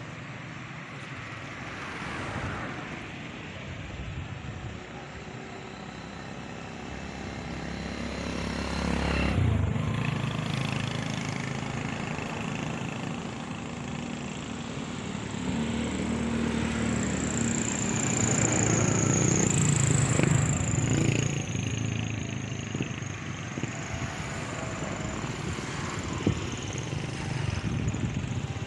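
Motor vehicles passing by: a steady low motor rumble that swells twice, around a third of the way in and again past the middle, when a thin high whine rises and falls.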